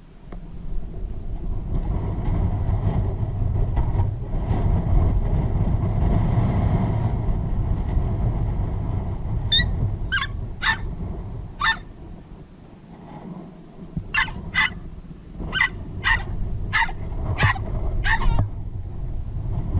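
A Jack Russell terrier yapping in short, sharp barks: four about halfway in, then after a short pause about seven more. A steady low rumble runs underneath.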